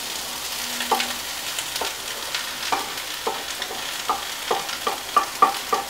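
Oil and vegetables sizzling in a hot pan as shredded chicken is scraped into it off a wooden cutting board with a metal spoon, the spoon knocking and scraping over and over, faster near the end.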